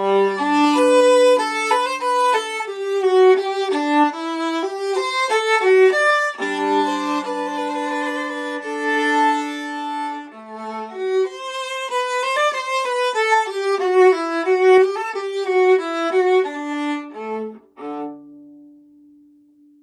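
A vintage c1960 European 15.75-inch viola played solo with a bow: a moving melodic passage, in places with a low note held under the tune as a double stop. It closes on a long held note that fades out near the end.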